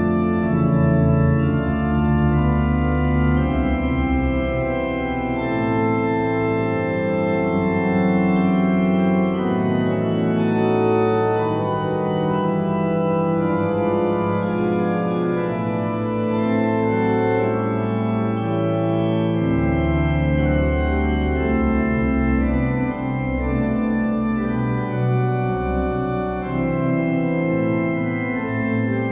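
Slow organ music: sustained chords that change every second or two, with deep bass notes dropping in and out.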